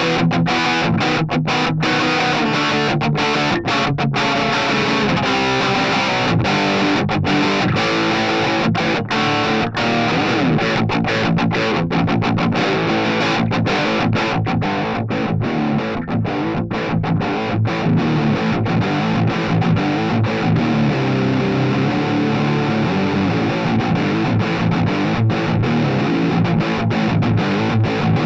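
Electric guitar played through a Harley Benton Crunch Distortion pedal: a continuous distorted riff with brief stops between chords and notes.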